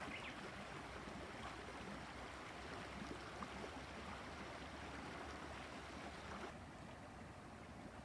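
Faint steady rushing of a shallow creek flowing, which gets quieter about six and a half seconds in.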